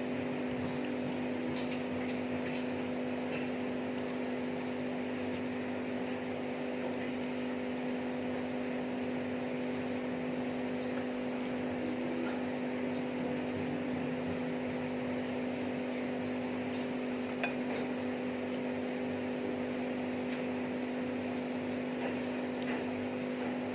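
A steady machine hum, with a few faint clinks of utensils on dishes scattered through it.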